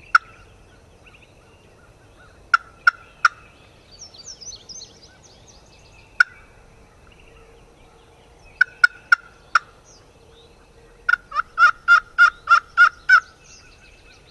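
Wild turkey yelping: short, sharp yelps, single and in groups of three or four, then a run of about eight evenly spaced yelps near the end. Faint songbird chirps come about four seconds in.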